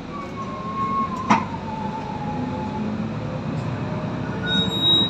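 Cabin noise of a moving Solaris Urbino 18 III articulated city bus: a steady low rumble with a drawn-out squeal that slowly drops in pitch. A single sharp knock comes about a second and a half in, and a short higher squeal comes near the end.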